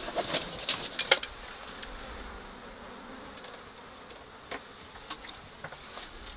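Flies buzzing, with a cluster of sharp clicks in the first second or so, the loudest about a second in, and a few fainter ticks later.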